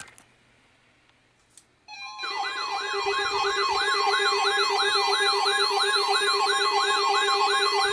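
NOAA Weather Radio weekly test alert tone: after about two seconds of near silence, a loud steady alarm tone starts, mixed with a siren-like warble that sweeps up and down about twice a second.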